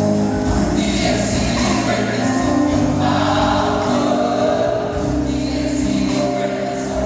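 Gospel choir singing in parts, with sustained low accompanying notes beneath.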